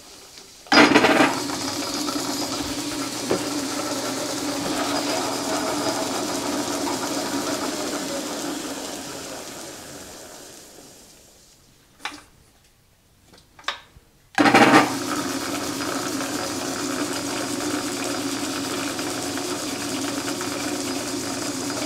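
Belt-driven metal lathe starting up and running steadily with a low hum while a tailstock drill bores into the spinning workpiece. About eight seconds in it coasts down to a stop, two short clicks follow, and about fourteen seconds in it starts again and runs on.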